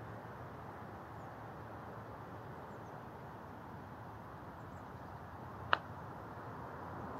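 A putter striking a golf ball once, a single sharp click near the end, over steady background noise.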